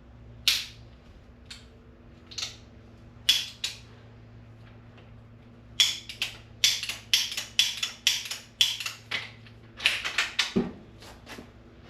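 Irregular sharp clicks and knocks, a few at first and then a quick run of them through the second half, over a faint steady hum.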